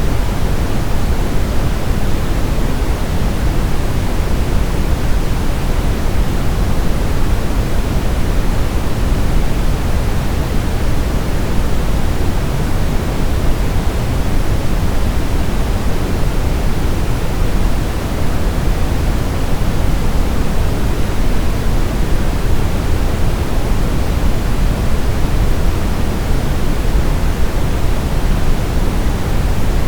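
Steady brown noise: an even, unchanging rumble-like hiss, heaviest in the low end and falling off toward the highs.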